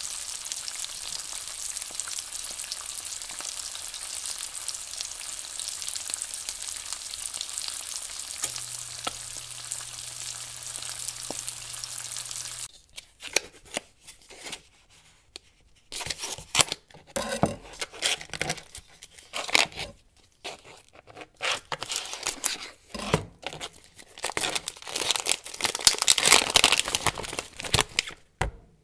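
Eggs frying in oil in a pan: a steady sizzle with a few faint pops. About thirteen seconds in it gives way to clear plastic wrap being pulled and torn off a sausage, irregular crinkling and tearing that is loudest near the end.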